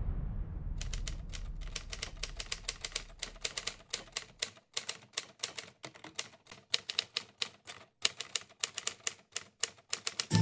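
Typewriter sound effect: keys clacking in quick, irregular runs with a couple of short pauses, the effect that goes with text typed out letter by letter.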